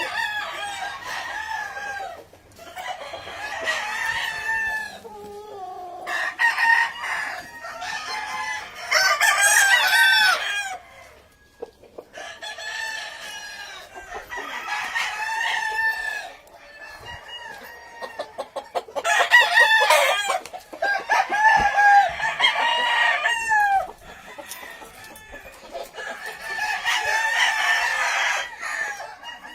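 Gamefowl roosters crowing, one crow after another every couple of seconds, with the calls sometimes overlapping.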